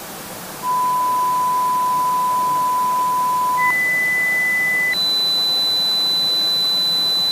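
Electronic pure tones over a steady hiss. The tone steps up an octave at a time: about three seconds at the lowest pitch, just over a second an octave higher, then about two seconds an octave higher again.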